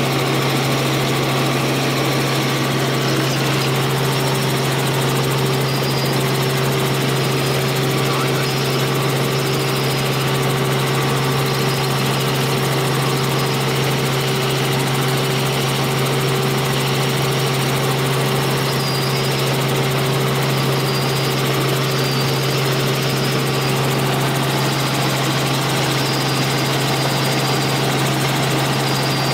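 Steady drone of a light helicopter's engine and rotors in flight, heard from inside the cabin: an even, unchanging hum with a few steady higher tones over it.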